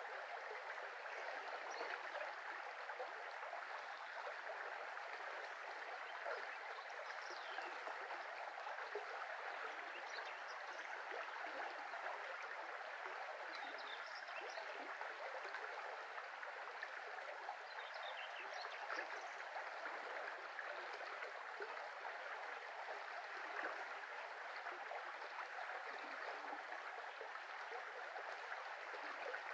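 Shallow brook flowing steadily over riffles: an even, unbroken rush of water. Faint high chirps come through a few times.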